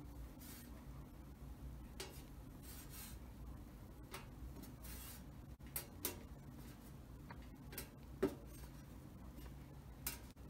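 Fingers twisting fishing line, wrapping the tag end around the main line for a clinch knot. Faint rubbing with scattered small ticks, the sharpest about eight seconds in.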